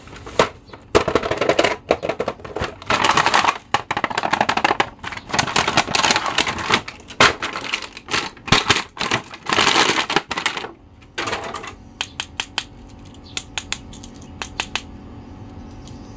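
A cardboard toy box and clear plastic bag crinkling and rustling as an action figure is unpacked by hand, then a run of separate sharp clicks near the end.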